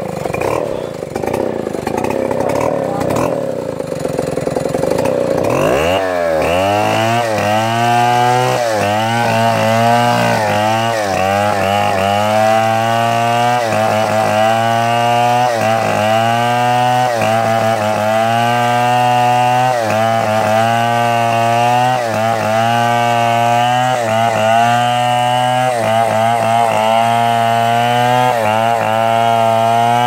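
Stihl two-stroke chainsaw running at low speed, then opened up to full revs about six seconds in and cutting through a palm trunk. Its pitch sags and recovers again and again as the chain loads up in the wood.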